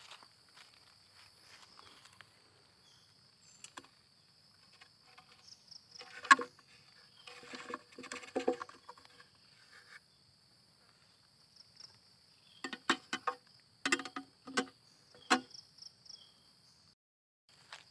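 A steady high-pitched insect trill in the background, breaking off near the end. Over it, sharp clicks and knocks from the black plastic lid of a clear insect box being opened and shut: a few around six to nine seconds in, then a quick run of them later.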